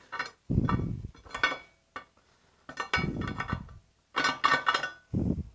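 Hammer striking a small steel piece on rectangular steel tubing: repeated sharp blows in short groups, each clanging and ringing briefly.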